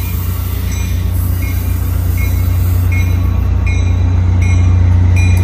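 Caltrain EMD F40PH diesel locomotive running into the station with its train, a steady deep diesel hum growing louder as it approaches. A short ringing tone repeats about every three-quarters of a second, the locomotive's bell ringing on arrival.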